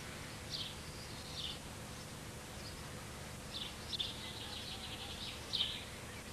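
Faint, short, high-pitched animal chirps, a handful scattered through, with a quick pulsed run of them in the middle, over a low steady hum.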